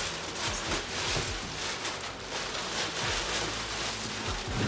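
Black plastic bin bag rustling and crinkling as hands rummage through it, in a dense run of quick crackles.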